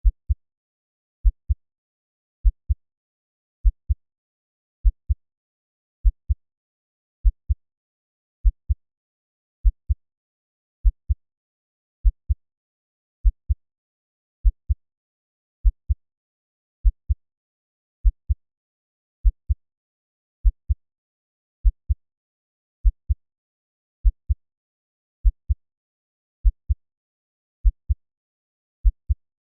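Slow heartbeat at 50 beats a minute: low lub-dub double thumps, the second following the first closely, repeating about every 1.2 seconds with silence between beats.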